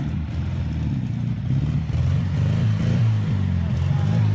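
Off-road race vehicle's engine running under changing throttle, its note rising and falling and getting louder about a second and a half in.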